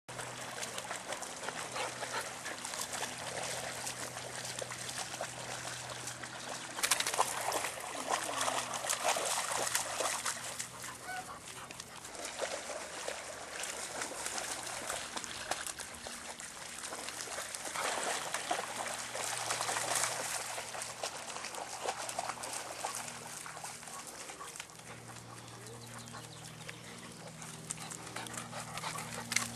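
English springer spaniels splashing and wading through lake shallows, with dog sounds among the splashing; the splashing is louder in two stretches.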